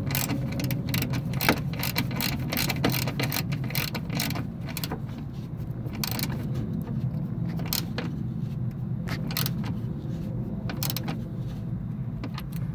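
Irregular metal clicks and clinks of a hand wrench or ratchet snugging up the bolts on the wiper motor mount bracket, over a steady low hum.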